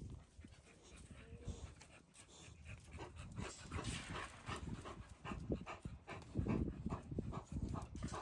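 American Bully dog panting faintly in quick, irregular breaths that come more often after the first few seconds.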